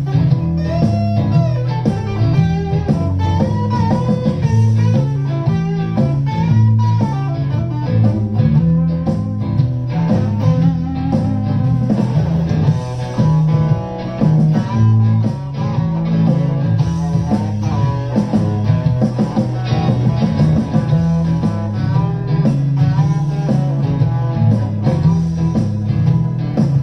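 Solid-body electric guitar played through an amplifier, an improvised blues-rock line mixing bent lead notes with low riffing.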